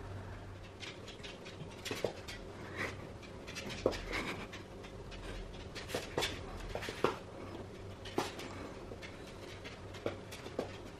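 A small curly-coated dog's claws clicking and skittering on wooden floorboards in scattered taps as it darts and spins after a laser dot.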